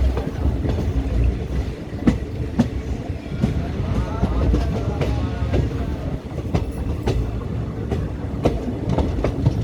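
Train running along the track: a steady low rumble with wheels clicking over rail joints, sharp clacks coming every half second to a second.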